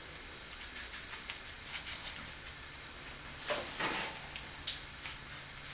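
Chip brush stroking oil-based floor enamel onto a wooden board: light, bristly scratches and small ticks, with a louder scrape about three and a half seconds in.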